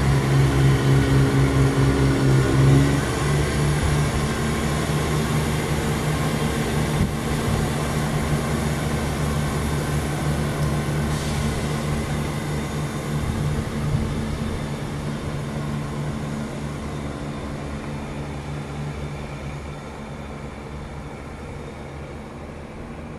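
Chiltern Railways Class 168 diesel multiple unit pulling away from a stand, its underfloor diesel engines droning loudly under power. About three seconds in the engine note eases, and the steady drone then fades as the train draws off into the distance.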